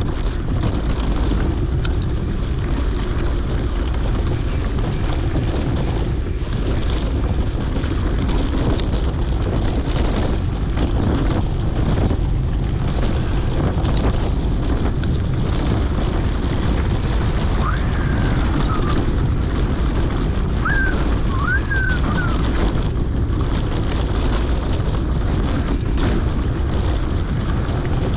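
Wind rushing over a GoPro's microphone on a moving mountain bike, a steady low rumble. A few short high squeaks come a little past the middle.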